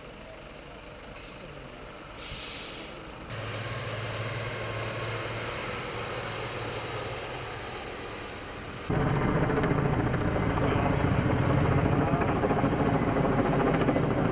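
A heavy vehicle's engine running steadily, with a short burst of air hiss about two seconds in. The engine sound jumps suddenly louder about nine seconds in.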